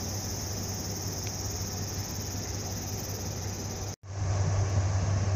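Steady high insect drone over a low hum. About four seconds in, after a brief dropout, a louder low hum takes over, the idling diesel engine of a Kanto Railway railcar standing at the platform, with the insect drone continuing above it.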